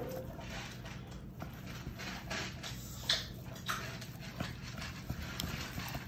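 Chef's knife sawing through a crusted ribeye roast on a wooden cutting board: repeated scraping strokes through the seasoned crust, with a few sharp taps as the blade meets the board.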